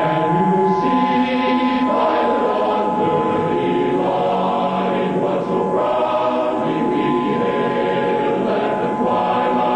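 A choir singing, with a steady two-note electronic tone held underneath it that is strongest at the start and again near the end.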